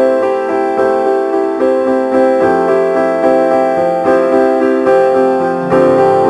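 Background piano music, a run of sustained notes that change every half-second or so.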